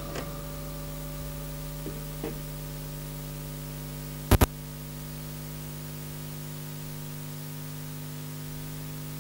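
Steady electrical mains hum with a faint hiss from the audio gear. A few faint knocks come in the first couple of seconds, and a sharp double click comes about four seconds in.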